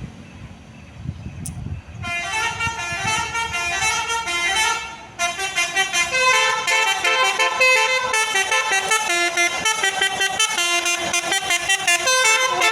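Bus telolet horn playing a quick tune of many changing notes, starting about two seconds in after a low vehicle rumble, with a brief break around five seconds.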